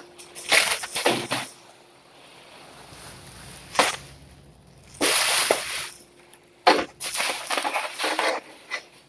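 Handling noise from a loose rear lip spoiler being lifted and moved about: bursts of rustling with a sharp knock about four seconds in and another near seven seconds.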